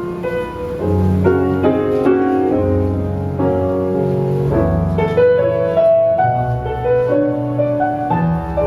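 Recorded jazz ballad in a piano interlude, with no vocal, played back over a valve-amplified hi-fi system through loudspeakers in a listening room.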